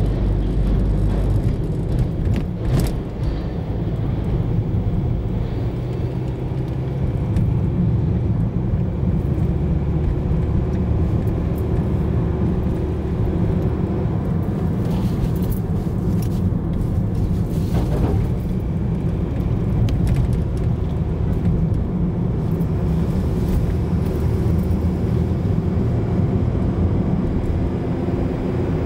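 Car driving, a steady low engine and road rumble, with a couple of brief knocks, one about three seconds in and another near eighteen seconds.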